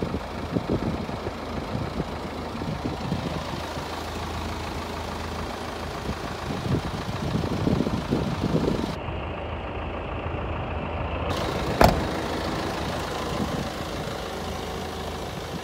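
Mitsubishi Fuso Canter truck's 4M50 four-cylinder diesel engine idling steadily, with one sharp knock about twelve seconds in.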